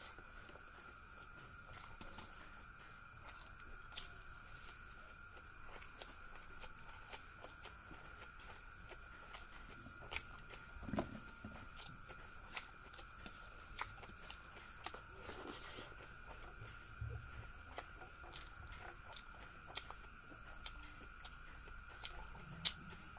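Close-miked eating sounds: chewing and small wet mouth clicks and smacks, scattered irregularly, as rice and fried fish are eaten by hand. A faint steady high-pitched tone sits behind them.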